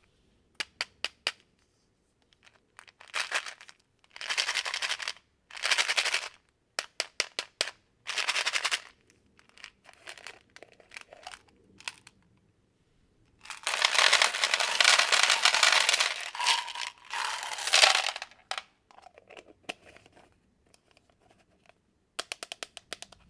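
Packaging crinkling and tearing in short bursts, with a longer stretch of dense crinkling in the middle. There are quick runs of sharp clicks about a second in and near the end.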